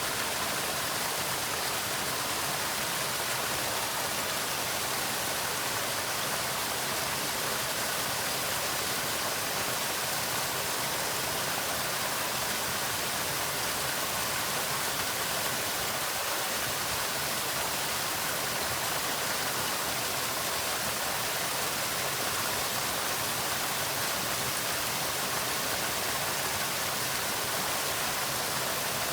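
Water falling at a waterfall, a steady, even splashing with no breaks.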